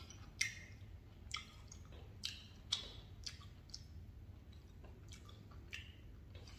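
Faint wet mouth clicks and smacks of someone chewing a pitted black olive, coming irregularly about once or twice a second.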